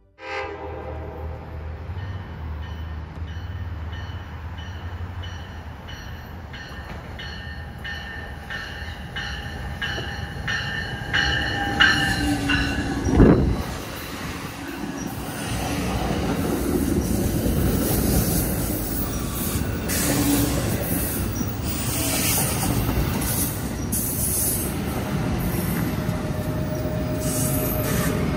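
NJ Transit push-pull train of Multilevel coaches running past close by. A regular ringing repeats about twice a second through the first dozen seconds, a sharp bang sounds about halfway through, then the rumble and clatter of the passing cars grows louder.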